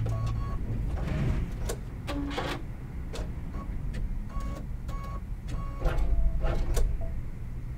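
Brother Luminaire 2 embroidery machine answering button presses with short electronic beeps, one near the start and a quick run of four about four to six seconds in, among clicks and the whir of its embroidery arm moving the hoop.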